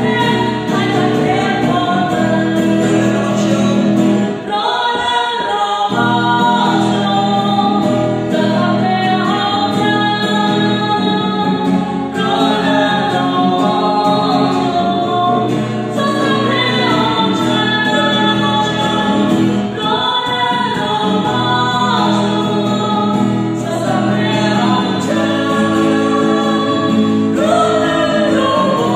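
A man and a woman singing a Khmer Christian worship song together, with the man strumming an acoustic guitar.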